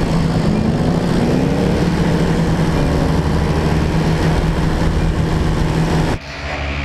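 Vehicle engine running as it drives and turns over a dirt paddock, with wind rushing over the camera's microphone. The sound drops away abruptly about six seconds in.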